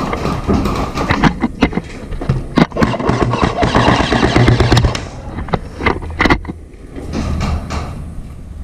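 Irregular sharp clicks and knocks over a rustling noise and a low rumble; the rustling grows loudest from about three to five seconds in.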